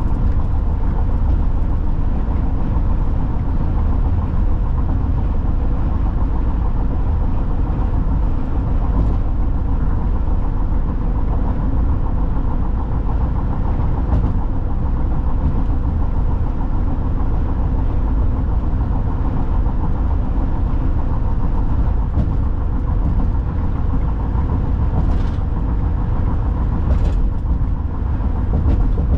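Car cruising at highway speed on a concrete interstate, heard from inside the cabin: a steady low rumble of tyre and engine road noise.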